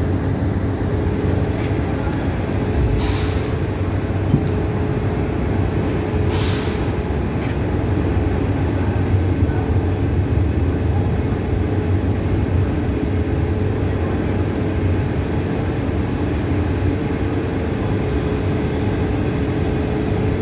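A machine running steadily with a constant low hum, with two short hisses of air about three seconds and six and a half seconds in.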